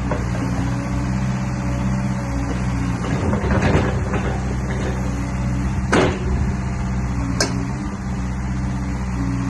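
Hyundai HX140L excavator's diesel engine running steadily. Sharp knocks break in: a short cluster about three and a half seconds in, then single knocks about six and seven and a half seconds in.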